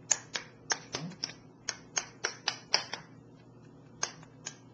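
A plastic rice paddle knocking against the side of a ceramic bowl while sushi rice is stirred and turned over: about a dozen sharp, irregular clicks in the first three seconds, then a pause and two more near the end.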